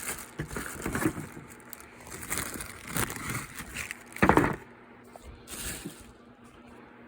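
Handling noises: rustling and clacks as a cordless tool battery and its box are handled, with one louder thump about four seconds in.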